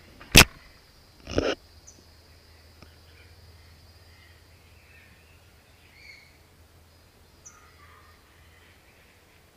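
A sharp knock against the camera, then a second, softer bump about a second later, as an ocelot nuzzles and pushes at it. After that, only a few faint bird chirps.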